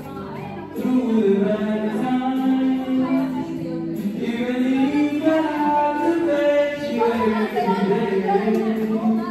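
Vocal music: several voices singing, holding long notes that move from pitch to pitch.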